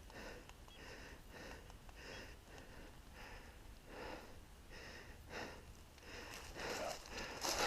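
Footsteps through dry leaves and brush, a faint rustle about twice a second that grows louder near the end.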